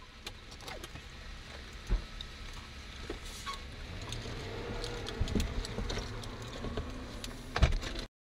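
Scattered clicks, knocks and rustling over a hiss that slowly grows louder, with two heavy thumps, about two seconds in and near the end.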